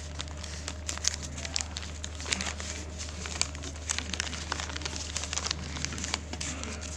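Paper food wrapper crinkling as it is handled and folded by hand, in quick irregular crackles over a steady low hum.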